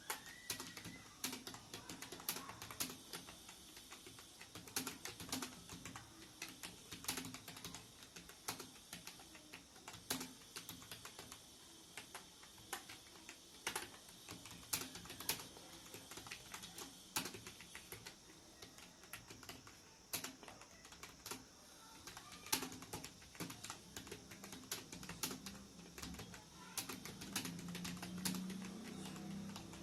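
Continuous typing on a computer keyboard: rapid, irregular runs of keystroke clicks with short pauses between bursts. A low hum comes in near the end.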